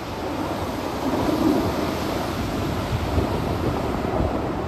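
Wind buffeting the microphone, a steady low rumbling rush with no distinct events.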